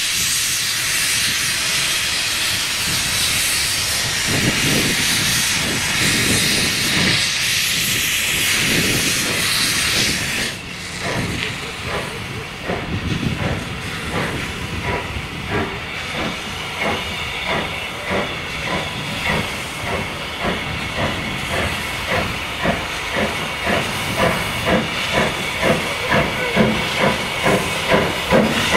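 Steam locomotive hissing steam steadily, then giving slow, even exhaust beats that speed up a little and grow louder toward the end.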